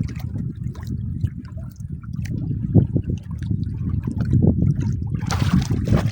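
Water lapping and sloshing against a small boat, over a steady low rumble, with scattered small knocks and a louder rush of water noise about five seconds in.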